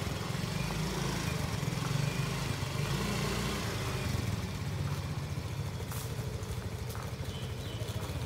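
Small motor scooter engine running steadily at low speed, a fast, even low putter.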